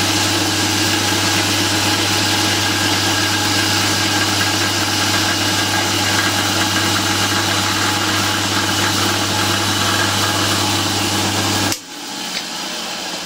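Drilling machine running steadily at speed, driving a homemade carbide flow drill that glows red-hot from friction-drilling through a hardened steel file and is then lifted clear. The running sound stops abruptly near the end, leaving a fainter sound with a click.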